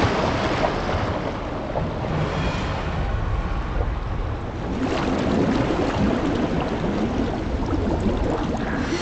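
Underwater churning water and bubbling over a steady low rumble, the sound effects of a documentary's underwater footage, growing fuller about five seconds in.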